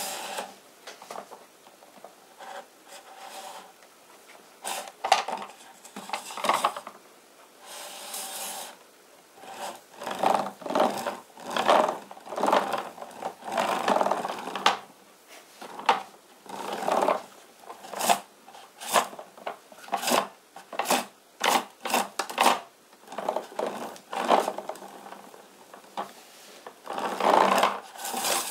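Plastic toy truck's chunky tyres rolling and rubbing on a hard tabletop as it is pushed back and forth by hand, in short irregular scraping strokes.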